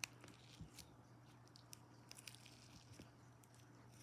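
Near silence with a few faint, scattered clicks and soft squishes of slime being handled, over a faint steady low hum.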